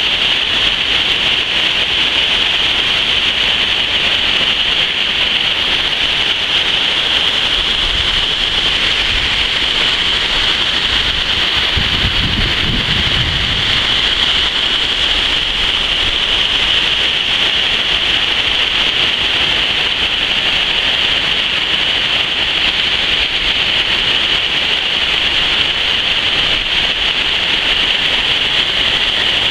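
Water pouring over a low dam and rushing through rocky rapids: a loud, steady rush. About twelve seconds in there is a brief low rumble.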